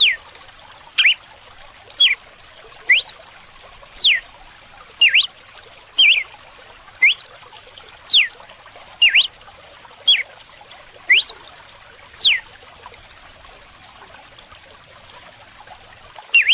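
Red-cowled cardinal singing its whip-like song: short, sharp whistled notes sweeping up or down, about one a second, over steady trickling water. The notes stop about 12 seconds in, with one more at the very end.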